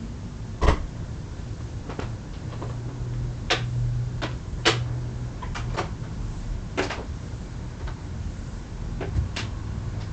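About ten sharp clicks and knocks at uneven intervals over a low steady hum, the loudest knock about half a second in.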